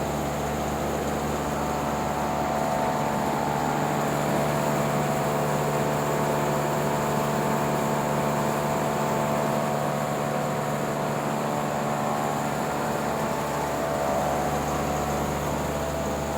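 A Zonda industrial axial fan running steadily: an even rush of moving air with a low hum and a steady higher whine.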